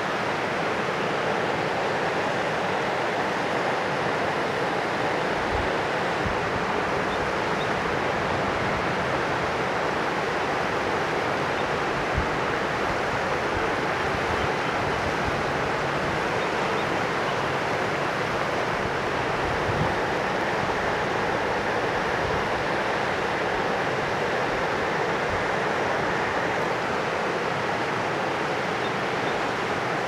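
A river rushing steadily: a constant, even wash of moving water.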